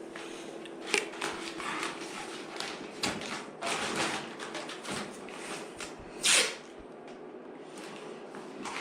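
Masking tape being handled: pulled and rubbed down over masking paper, with irregular scrapes and rustles and one short, louder rip about six seconds in.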